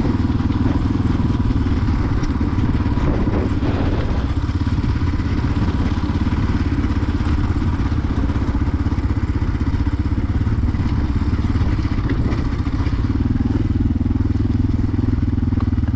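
Motorcycle engine running steadily under way, a continuous low pulsing engine note with road and wind hiss over it.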